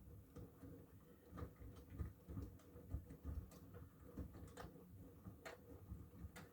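Miele washing machine running faintly: a low rumble with irregular light clicks and taps.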